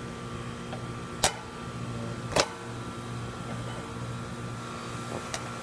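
Outdoor central air-conditioner condensing units running: a steady low compressor hum under fan noise. Two sharp clicks come about a second and two and a half seconds in.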